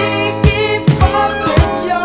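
Soul-funk song playing: a steady drum beat of about two kicks a second under sustained melodic lines.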